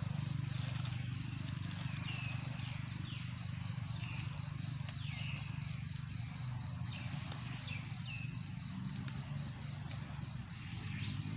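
Outdoor insect drone, a steady high tone, with a bird giving short falling chirps several times. A steady low hum runs underneath, and there is an occasional faint crackle of dry leaves being handled.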